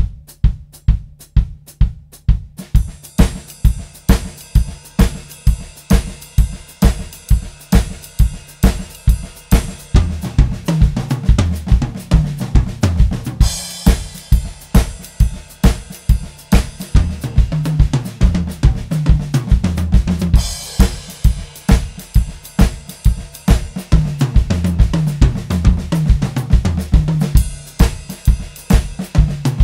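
Drum kit played: a steady beat of about two hits a second, with hi-hat or ride cymbal joining about three seconds in. Fills down the toms begin around ten seconds in, built from Swiss flam triplet patterns, with crash cymbals at roughly 14, 21 and 28 seconds.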